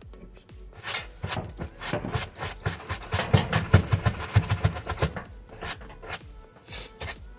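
Stiff brush scrubbing carpet in quick back-and-forth strokes, building up about a second in and easing off about five seconds in.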